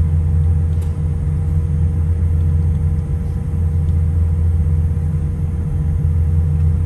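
Steady low rumble inside a jet airliner's cabin as it taxis, with a faint steady tone above it.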